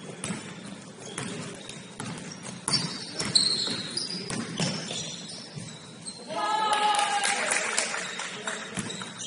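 Basketball game in a gym: a ball bouncing on the hardwood with sneakers squeaking briefly about three seconds in. A loud voice calls out for about a second and a half midway through.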